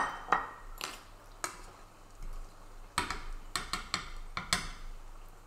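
Kitchen utensils tapping and clinking against pans and dishes: a string of short, light clicks and knocks at irregular intervals.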